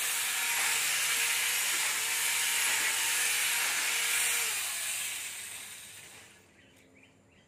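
Small electric mini chainsaw running at full speed, a steady high hissing whir of motor and chain as it cuts into leafy branches. About four and a half seconds in it winds down and fades out over a couple of seconds.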